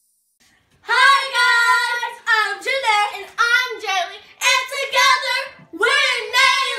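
Two young girls singing together, loud, starting about a second in, in short phrases with held notes.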